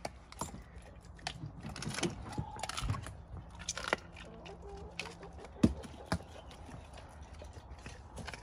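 Doberman eating raw food from a stainless steel bowl: irregular wet chewing, licking and crunching, with the metal bowl knocking on the deck. The sharpest knock comes about five and a half seconds in.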